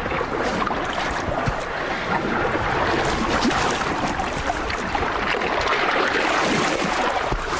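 River water rushing and splashing: a steady dense noise peppered with small splashes, a little louder in the second half.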